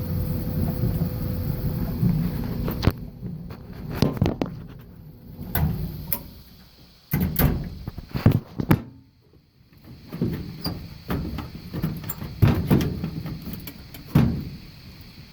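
A steady low running rumble that stops about three seconds in, followed by a scattered series of knocks, clunks and clicks, like panels and parts of a stackable dryer being handled and closed.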